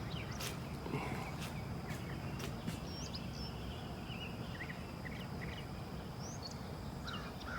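Outdoor ambience: birds chirping now and then over a steady low rumble, with a thin, steady high whine like an insect running throughout.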